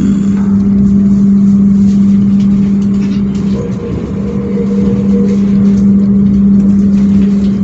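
Steady hum and rumble inside a moving passenger train coach, with a faint higher tone joining for about two seconds near the middle.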